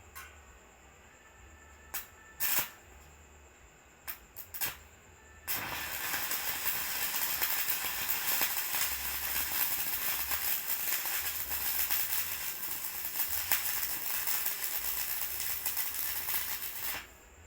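Electric arc welding on the teeth of a corn sheller: a few short bursts as the arc is struck, then a steady crackling arc for about eleven seconds that stops abruptly near the end.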